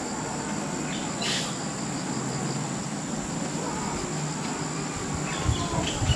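Outdoor ambience dominated by a steady, high insect trill, with a short chirp about a second in and a few soft knocks near the end.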